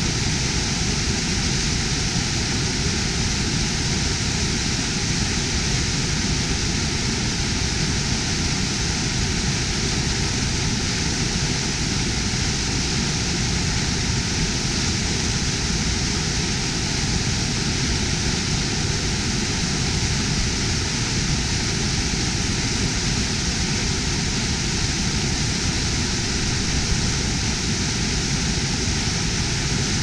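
Waterfall: water pouring onto rocks in a steady, unbroken rush.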